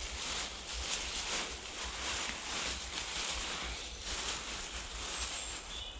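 Leafy branches rustling continuously as they are gathered and handled by hand, with a low wind rumble on the microphone.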